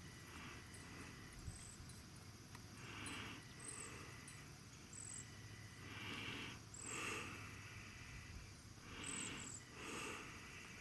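Faint, soft puffs of breath from a harnessed draft horse at a walk, coming every second or few, some in close pairs.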